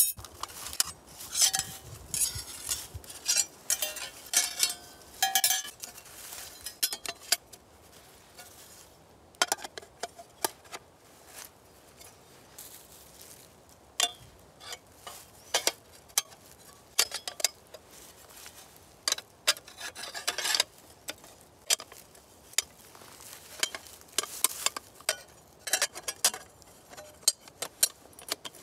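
Metal plates of a flat-pack folding wood camp stove clinking, knocking and scraping against each other as they are slotted together, with short metallic rings in the first few seconds.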